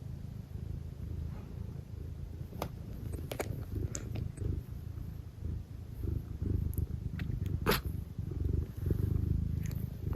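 Domestic cat purring close up, a steady low pulsing rumble, with a few light clicks on top, the sharpest about three-quarters of the way through.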